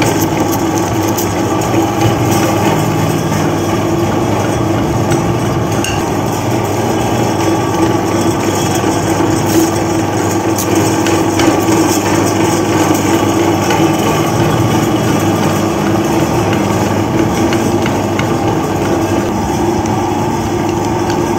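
Electric meat grinder running steadily, its motor humming and the steel auger turning, with scattered clicks as chocolate bars with nuts are fed in and ground.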